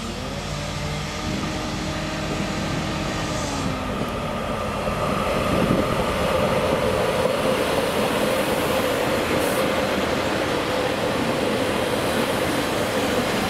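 Class 144 Pacer diesel multiple unit approaching and passing. Its engine note is heard at first, then about five seconds in the louder, steady rumble of its wheels on the rails takes over as it goes by.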